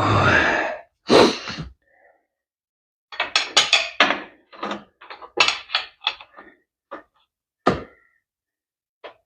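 Metal parts and tools being handled and set down in a workshop: a loud clunk about a second in, then a quick run of knocks and clatters, and a few single knocks near the end.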